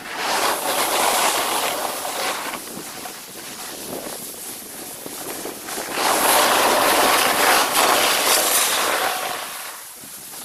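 Snowboard sliding over packed snow, the board scraping with a loud, even hiss that swells twice: for the first two seconds or so, and again from about six seconds in until near the end.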